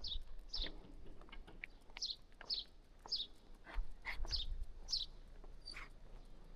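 A small bird calling: a series of short, high chirps, each dropping quickly in pitch, about ten of them at uneven half-second to second spacing, over low thuds and rumble.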